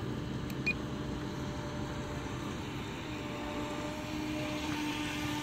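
Rage Black Marlin RC boat's motor running at speed across the water with a steady whine that rises slightly in pitch about three to four seconds in; a single short click just under a second in.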